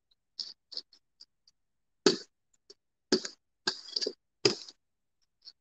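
A hand brayer worked through wet paint on a tabletop, giving short, irregular sticky crackles and taps. These start as faint ticks and grow louder from about two seconds in.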